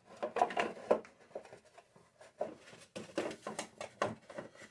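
The stubborn black plastic belt cover of a Husqvarna ST224 snowblower being worked loose by hand: a string of irregular knocks, clicks and scrapes of plastic against the machine's frame.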